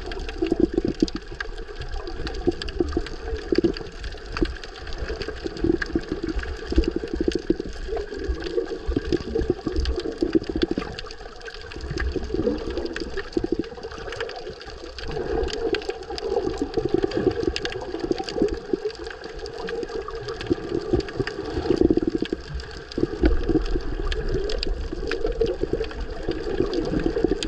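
Muffled rush and gurgle of moving seawater heard underwater, swelling and easing every few seconds, with small crackles throughout.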